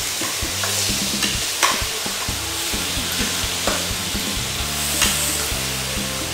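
Meat sizzling and frying on a grill pan over a portable gas stove, a steady hiss throughout. Metal tongs and utensils click sharply against the pan a few times as the meat is turned.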